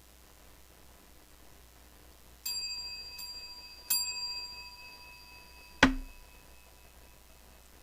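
A wrestling ring bell struck three times, the first about two and a half seconds in, a faint second strike soon after and a stronger third near four seconds, each ringing out and fading. Then about six seconds in comes a single sharp thud, the loudest sound, as a wrestler is slammed down on the mat.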